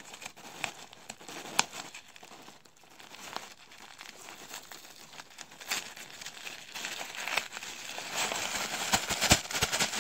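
Paper packing rustling and crinkling as hands dig through crinkle-cut paper shred and pull out a tissue-paper-wrapped item. There are scattered crackles, then denser, louder rustling near the end.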